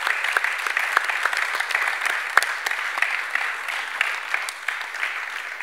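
Audience applauding, a steady mass of claps that holds throughout.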